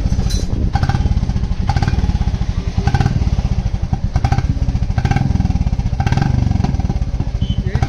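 Royal Enfield Classic 350 Reborn's 349 cc single-cylinder engine idling through a trial aftermarket silencer, with a steady, heavy exhaust beat. Short sharp clacks come about once a second.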